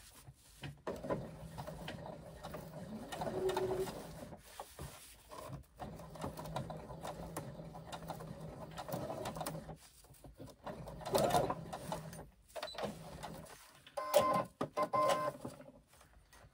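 Brother domestic sewing machine running slowly, sewing a long basting stitch through waterproof canvas and zipper tape. It runs in several stretches with short stops between them.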